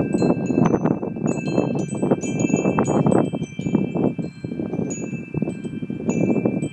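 Wind chimes ringing: many short, high metal tones struck irregularly, overlapping and ringing on. Underneath is a louder steady rushing sound.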